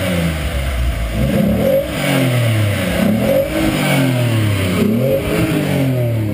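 Car engine revved up and down again and again, its pitch climbing and falling several times.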